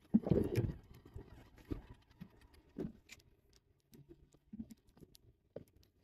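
Handling noise from a fishing rod and conventional reel: light knocks, rubs and ticks of hands and gloves on the reel. A denser cluster comes just after the start, then only scattered single clicks.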